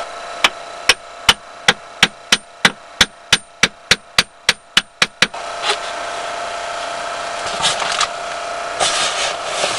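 A hand tool tapping on rock: about twenty sharp taps that quicken from roughly two to six a second and stop about five seconds in. After them comes a steady hum with faint scraping.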